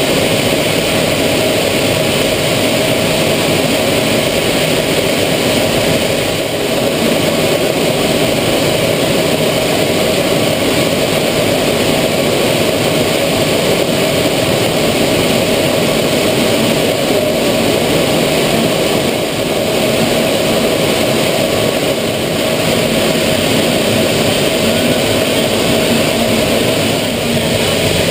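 Aero L-39 Albatros jet's turbofan engine and rushing air heard from inside the cockpit in flight: a loud, steady roar with a constant droning hum.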